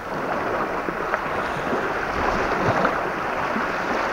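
Strong wind blowing across the microphone: a steady rushing noise with no speech.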